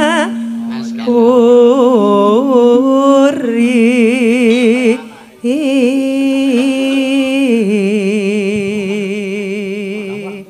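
Javanese sinden singing a slow, unaccompanied-sounding tembang phrase, long held notes with wide vibrato, breaking off briefly about five seconds in before going on.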